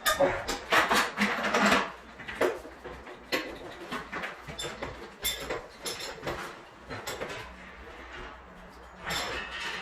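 Irregular clinks, knocks and scraping of tools and metal parts being handled during installation work, with a denser clatter about half a second to two seconds in.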